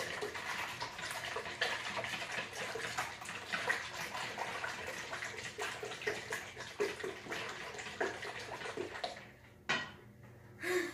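Pudding mix and milk being stirred briskly in a large mixing bowl: fast, wet sloshing and scraping of the utensil against the bowl. The stirring eases off about nine seconds in, with a short knock near the end.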